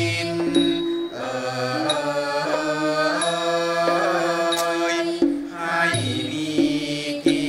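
Female chorus singing a Thai classical song of royal praise in unison, in long held notes with wavering ornaments, over a Thai classical ensemble with a few drum strokes toward the end.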